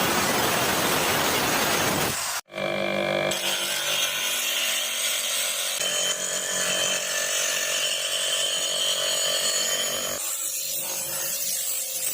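Power tool running and cutting, the sound changing abruptly about two and a half seconds in and again near ten seconds, as if cut between clips.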